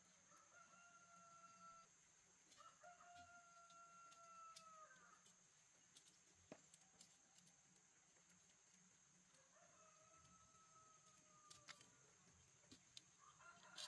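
Faint, distant roosters crowing, four or five long drawn-out crows, the longest about two and a half seconds with a falling end. A steady high whine runs underneath, with a few sharp clicks or knocks, one about halfway through.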